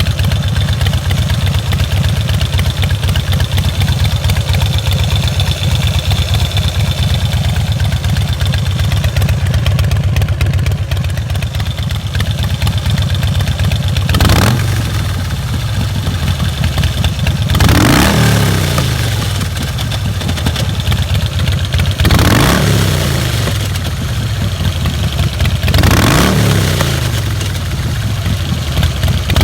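Motorcycle V-twin engine with 583 cams and Quickee adjustable pushrods idling steadily, then blipped in several short revs from about halfway in, each falling back to idle. An odd sound follows each rev, which the owner is asking about.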